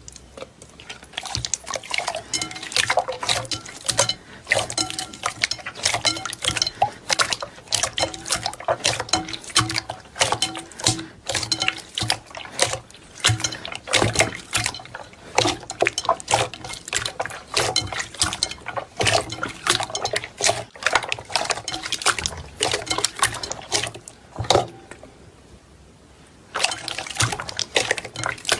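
Slime being squeezed, poked and pressed by hand: a fast, irregular run of wet squelches, clicks and pops, with a short lull near the end before they start again.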